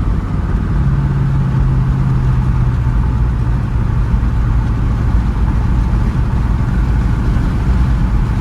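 A Jeep's engine running steadily as the vehicle is driven, a continuous low drone whose strongest low tone fades after about three seconds. The engine has rod knock and is struggling to keep going.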